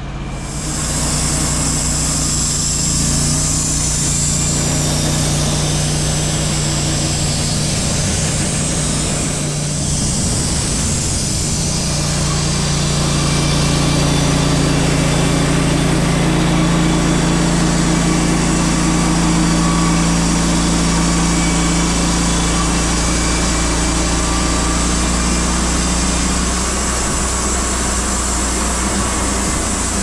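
Gas engine of an EZ Boardwalk 40 bandsaw mill running steadily under load while the band blade saws along a log, the saw head pushed by hand down the track. The sound grows a little louder from about halfway through.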